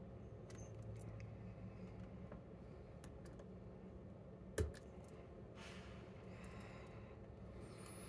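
Faint handling of a brass dimple lock cylinder and its tools: scattered small metallic clicks, with one sharp click about halfway through, over a low steady hum.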